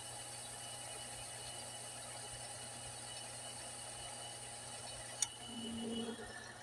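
Metal lathe running with its chuck spinning, a steady mechanical hum with a faint whine. About five seconds in there is a sharp click, then a brief, louder pitched sound lasting under a second.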